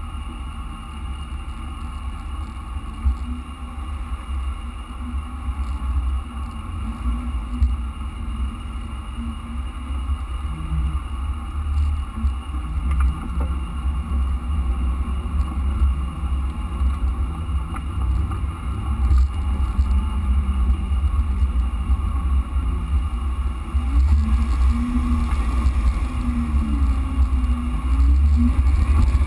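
Jeep Wrangler JK driving slowly along a rutted dirt trail: a steady low rumble of engine and drivetrain at low revs, getting somewhat louder near the end.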